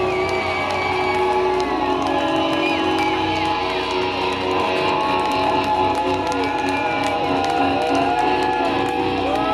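Concert crowd cheering and whooping over music made of long held notes, with no drumbeat.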